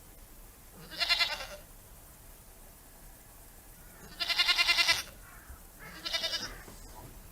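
Goat bleating three times: a short bleat about a second in, a longer quavering bleat around the middle, and a shorter one near the end.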